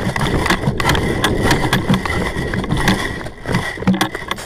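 Rumbling, clattering handling noise from a head-mounted action camera as the player moves with his airsoft rifle, with irregular knocks from gear and footsteps; it eases off a little after about three seconds, with one sharp knock shortly after.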